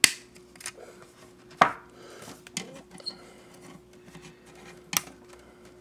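Plastic model-kit parts and sprue being handled and snapped, giving three sharp clicks (at the start, about a second and a half in, and near the end) with small ticks and rustling between, over a faint steady hum.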